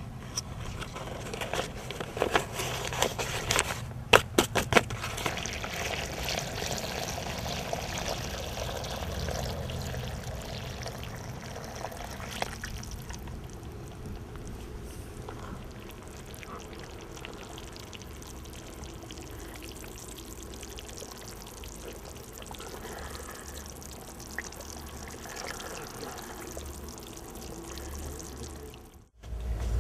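Crackling paper bag and pouring powder as glaze ingredients are tipped into a plastic tub, then water poured in and the mix stirred by hand into a wet glaze slurry.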